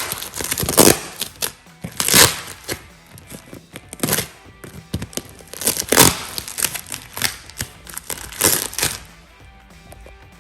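Wrapping and tape on a tightly packed parcel being torn and crinkled open in a series of rips, about one every second or two, over background music.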